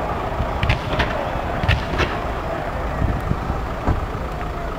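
Fireworks going off: a run of sharp, irregular bangs and crackles, several a second, over a steady rumble.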